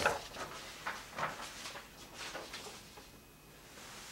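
Sheets of paper rustling and being handled, with a few soft knocks, as one printed sheet is taken down and another is put up against a board.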